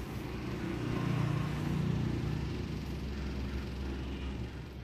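Low rumble of a passing motor vehicle in the background, loudest about a second in and then easing off.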